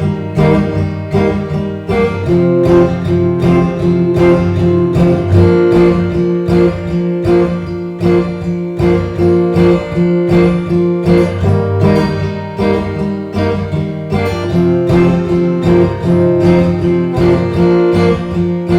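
Acoustic guitar strummed in a steady country-folk rhythm: an instrumental break between sung verses.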